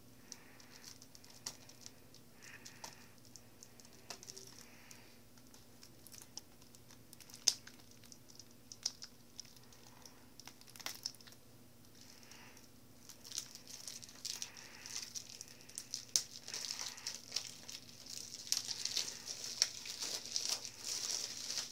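Plastic wrapping on a Blu-ray case being handled, crinkled and torn: sparse clicks and crinkles at first, then denser crinkling over the last several seconds. A faint steady hum lies underneath.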